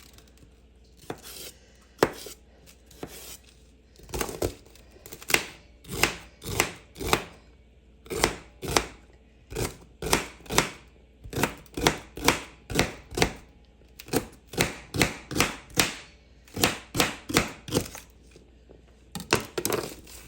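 Kitchen knife chopping celery stalks on a cutting board: a long run of sharp chops, up to about two a second, with a few short pauses.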